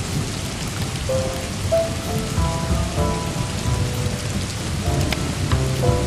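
Steady rain falling with a low rumble of thunder, under soft jazz whose held notes sound over the rain. A few sharp clicks come near the end.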